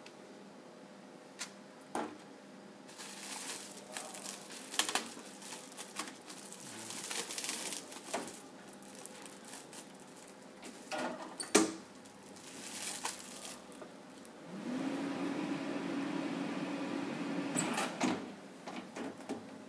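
Plastic shrink film crinkling as a CD case is wrapped in it on a Minipack Minima hood shrink sealer, then a loud clack as the hood shuts. The machine then runs with a steady hum for about three seconds during its seal-and-shrink cycle, and ends with clicks as the hood opens.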